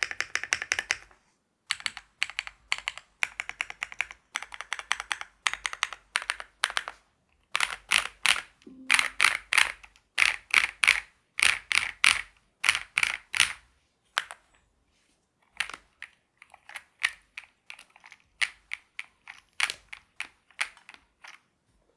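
Typing on a KiiBOOM Phantom 81 V2 mechanical keyboard with stock KiiBOOM Crystal linear switches, a PC plate and SA-profile keycaps. The keystrokes come in bursts of rapid presses, fastest and loudest in the middle, then thin out to scattered presses that stop just before the end.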